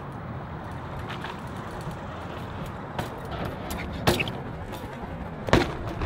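BMX bike rolling over rough concrete with a steady rumble from the tyres, broken by three sharp knocks of the bike hitting the ground, the loudest two about a second and a half apart near the end.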